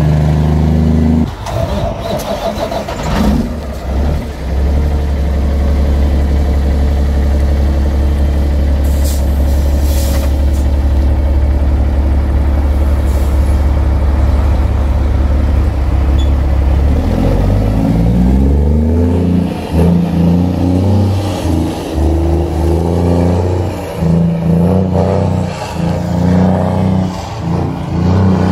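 Heavy Freightliner cab-over truck's diesel engine idling with a deep, steady drone, then revving and pulling away, its pitch rising and dropping several times as it works through the gears.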